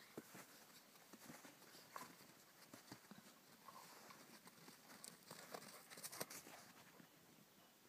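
Near silence, with faint scattered crunches of footsteps in snow, coming in a quicker run about five to six seconds in.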